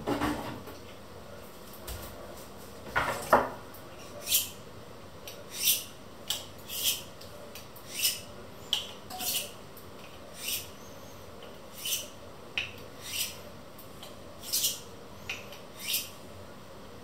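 Kitchen knife being drawn along a honing rod: a series of short, high scraping strokes, about one a second.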